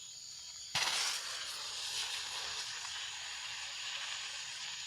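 A handheld Roman candle firework hissing once lit: a sudden loud spurt of hissing about a second in, settling into a steady sputtering hiss as it burns.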